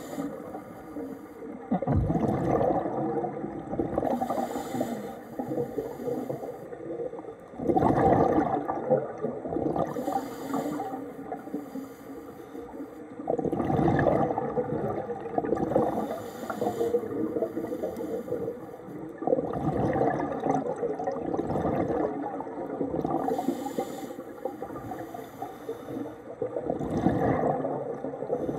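Scuba diver breathing through a regulator underwater: a thin hiss on each inhale, then a louder burst of exhaust bubbles on each exhale, about every six seconds.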